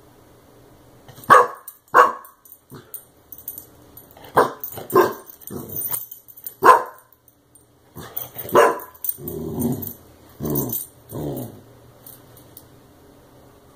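Clumber spaniel puppy barking at a compressed air duster can: about six short, sharp barks, then a few lower, longer growls in the second half. The barking is wary, aimed at a can that has sprayed him before.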